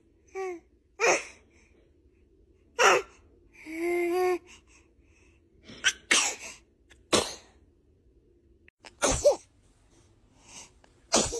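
A baby sneezing again and again: about six short, sharp sneezes with quick gasping breaths, and a brief pitched vocal sound about four seconds in.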